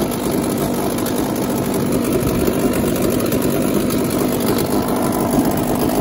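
Hangkai 12 hp two-stroke outboard engine idling steadily, its plastic cover lined with sound-deadening pad.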